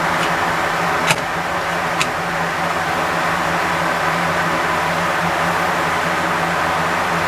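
Steady mechanical background hum, with two light clicks about one and two seconds in from hands working the arrow shaft and digital dial indicator on an arrow spine tester.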